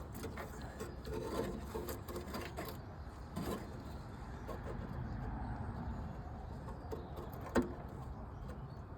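Hand work on a ride-on mower's starter solenoid mounting: scattered light clicks and knocks of metal parts and tools being handled, with one sharp click about seven and a half seconds in.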